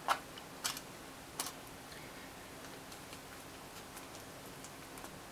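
Chopsticks clicking against a natto pack while scraping the natto out onto a bowl of rice: three light clicks in the first second and a half, then quiet room tone.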